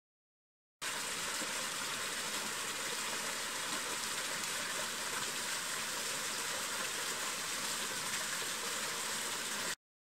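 Small mountain waterfall: water splashing down over rock in a steady, even rush. It starts abruptly about a second in and cuts off abruptly near the end.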